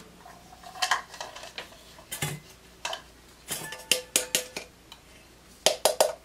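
A plastic measuring cup knocking and scraping against a stainless steel mixing bowl while sticky jam is worked out of it: an irregular string of clinks and scrapes, the metal bowl ringing briefly now and then.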